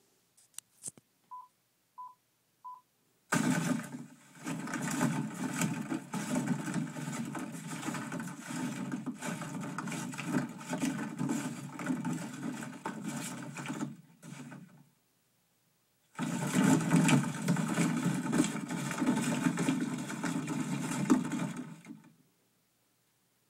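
Three short beeps, a little over half a second apart, then two long stretches of dense rattling clatter as hands churn a cardboard box of plastic balls, Foley performed for a ball-pit scene.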